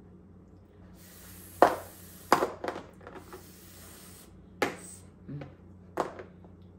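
Spoon and bowl clinking in a series of five or six short sharp knocks, the loudest about one and a half seconds in, over a faint steady hum.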